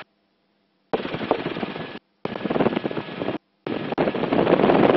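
Helicopter cabin noise, a rapid rattling chop, heard through a gated microphone that switches on and off abruptly. It comes in three blocks about a second or more long, with dead silence between them, and the longest block starts near the end.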